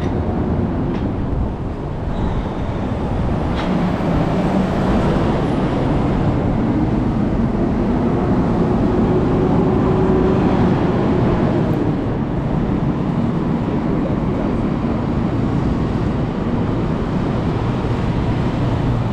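Steady, loud rumble of a motor vehicle running, with an engine hum that drifts slowly in pitch.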